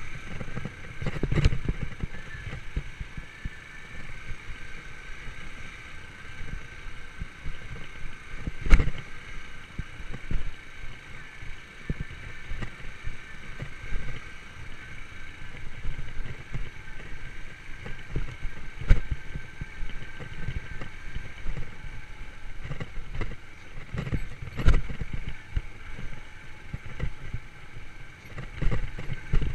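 Yamaha YBR125 motorcycle's single-cylinder four-stroke engine running steadily on a ride along a forest track, with frequent sharp knocks and jolts, a few of them much louder.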